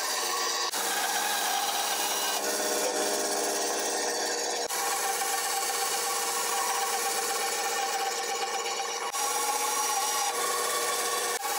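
Benchtop bandsaw cutting a lacewood slingshot blank along a traced outline: the motor and blade run steadily while the blade rasps through the hardwood, with the sound jumping abruptly a few times.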